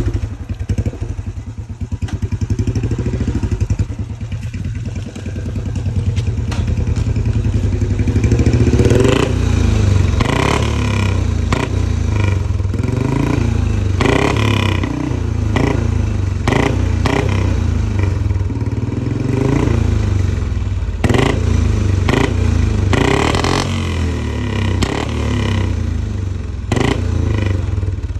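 Single-cylinder Royal Enfield Bullet engine breathing through a Mahindra tractor silencer, running at a slow thump at first, then revved up and blipped repeatedly from about eight seconds in. Sharp pops and crackles come from the exhaust between the revs.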